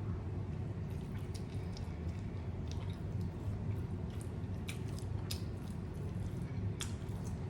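A person chewing a mouthful of taco close to the microphone, with scattered wet mouth clicks over a steady low hum.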